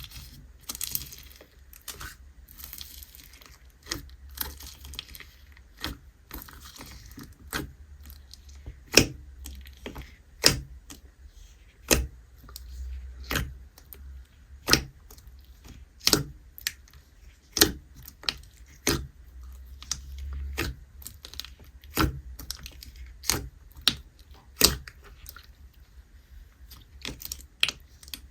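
Foam slime being squeezed and poked by hand: a fine crackling at first, then a run of sharp pops about every second and a half.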